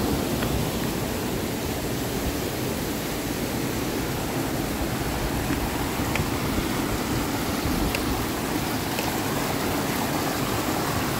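Steady rushing of river water tumbling over rocks in a small cascade.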